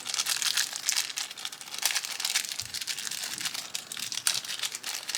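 Plastic packaging crinkling and rustling in irregular crackles while a hobby servo's bag is handled and opened.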